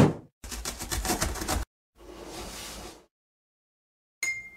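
Cartoon intro sound effects: a quick downward swoop, then a rapid rattle of thumps from the jumping cardboard box for just over a second, the loudest part. A softer whoosh follows about two seconds in, and a short bright ding rings out a little after four seconds.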